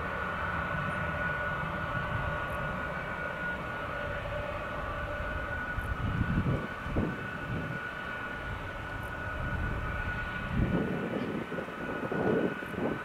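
Boeing C-17 Globemaster III's four Pratt & Whitney F117 turbofans idling with a steady whine while the aircraft holds on the runway before take-off power. Wind gusts rumble on the microphone about six seconds in and again near the end.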